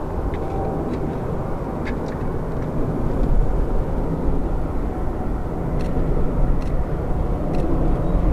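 Jet engines of a Boeing 777-300ER, its twin GE90-115B turbofans, running as a steady low rumble. It grows a little louder about three seconds in.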